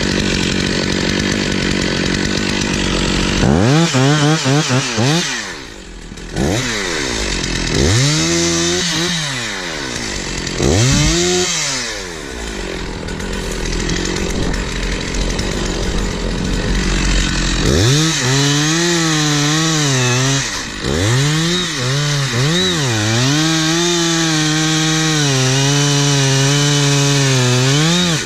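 Stihl 046 two-stroke chainsaw cutting timber at full throttle: the engine pitch sags and climbs back again and again as the chain loads up in the wood. It then holds a steady high note with brief dips for the last ten seconds or so.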